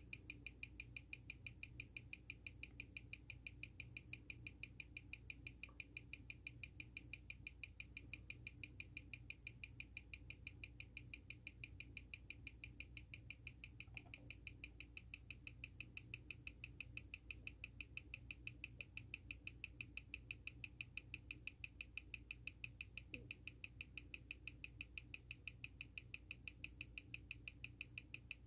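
Seiko SARB035's automatic movement ticking fast and evenly, six beats a second, picked up by a timegrapher's microphone, with a steady low hum underneath. The timegrapher reads it as running about 4 seconds a day slow in this position.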